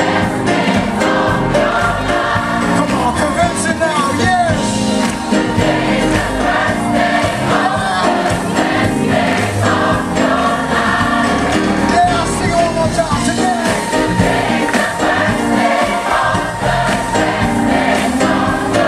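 A large gospel choir singing with a live band, a steady beat running under the voices.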